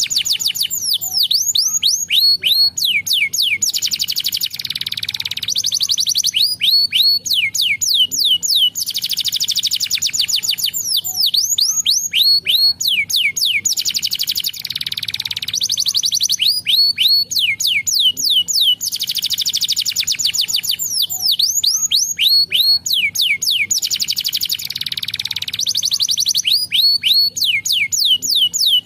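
Domestic canary singing a long, continuous song: runs of quick falling whistles alternate with dense, rapid rattling trills, the phrases repeating every few seconds without a break.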